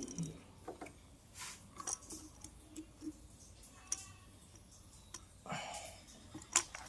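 Scattered light clicks and knocks of hand tools and small parts being handled during motorcycle fuel-system reassembly, coming irregularly a second or so apart.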